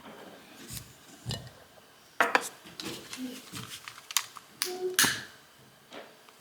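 Scattered sharp clicks and knocks of objects being handled, loudest a little past two seconds in and again about five seconds in.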